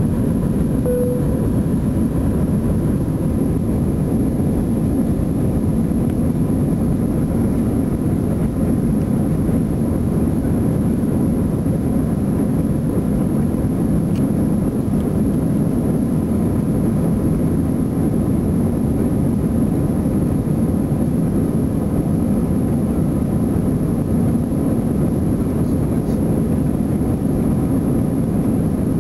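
Airbus A320's jet engines at take-off and climb thrust, heard from inside the cabin as a loud, steady low rumble.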